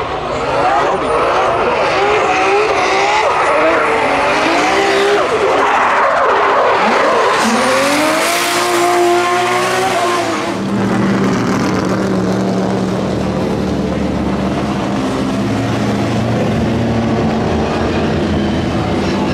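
Drift car engines revving hard and up and down while the tyres spin and skid, with a long rising rev about eight seconds in; from about ten seconds a steadier, lower engine note.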